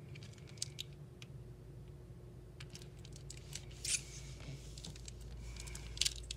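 Close handling noise: scattered small clicks and rustles, the sharpest about four and six seconds in, over a steady low hum.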